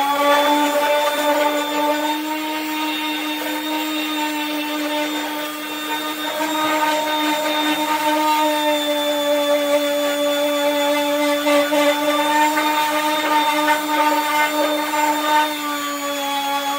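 Electric random orbital sander running with a steady whine, its pad sanding old paint off the steel decklid of a vintage VW Beetle.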